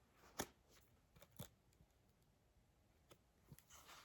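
Near silence, with a few faint clicks and paper rustles as a picture book's pages are handled.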